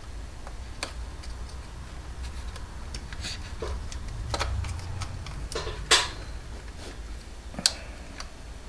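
Scattered small plastic clicks and taps, about half a dozen, from wire connectors and the plastic receiver box being handled as the wires are pushed through it, over a low steady hum.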